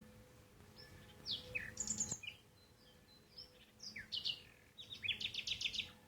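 Small bird calling in short high chirps, in three bursts, the last a fast run of repeated notes.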